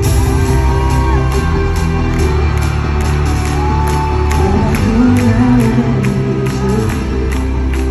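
Loud live pop music over an arena sound system, recorded from the crowd: heavy bass under a steady beat of about two strikes a second.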